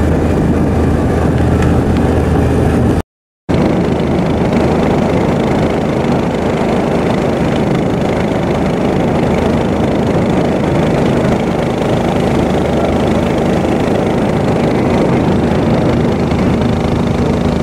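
A boat's engine running steadily under way, a low hum under the noise of water and wind. The sound breaks off briefly about three seconds in.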